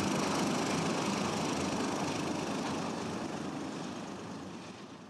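Twin turboprop engines of a DHC-5 Buffalo running as it taxis past, a steady roar with a thin high whine. The sound fades steadily as the aircraft moves away.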